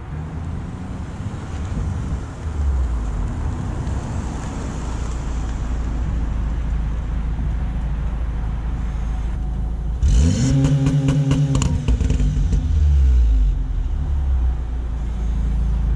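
2016 VW Golf R's turbocharged 2.0-litre four-cylinder, fitted with a catless downpipe in front of the stock resonator and rear muffler, pulling up and idling. It is revved once about ten seconds in, held for around two seconds, then drops back to idle.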